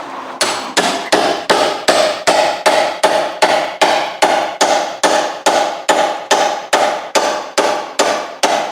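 A hammer striking steel over and over, about three even blows a second, each blow ringing, as a seized suspension bottom link joint is knocked free.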